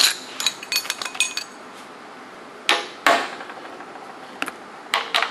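Metallic clinks and knocks of hand tools and engine parts being handled while a Tillotson 212cc engine's flywheel and plastic cooling fan are taken off. There is a quick cluster of clinks with a brief ring in the first second and a half, two louder knocks around three seconds in, and a few clicks near the end.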